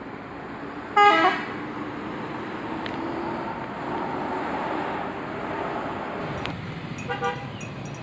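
A coach's telolet horn gives a short, loud blast about a second in, then the bus engine runs as the coach pulls away. Another brief horn toot sounds near the end.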